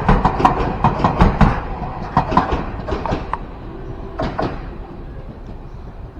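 Keio Inokashira Line train's wheels clacking over rail joints in quick pairs, the clacks thinning out and fading as the train moves away, with a last few clacks about four seconds in.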